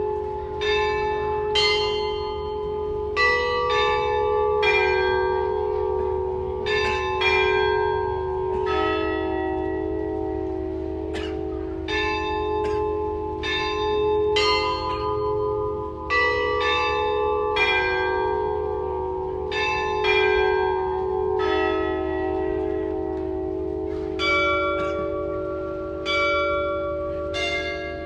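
A carillon of 16 tuned church bells, hand-played through wire cables from a wooden baton keyboard, ringing out a slow melody. A new bell is struck about once a second, and each is left to ring on, so several notes overlap.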